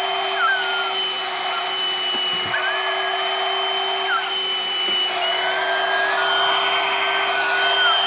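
Bagless vacuum cleaner running steadily: a motor hum with a steady high whine over the rush of air, and short whistles that slide in pitch now and then.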